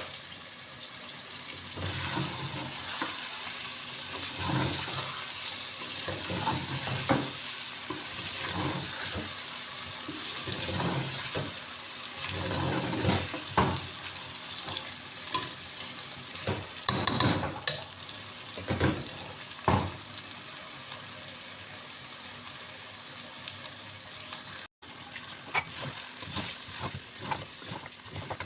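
Food frying and sizzling in a cooking pot, with a spoon stirring and knocking irregularly against the pot. The sizzle drops away about 25 seconds in, and only scattered knocks follow.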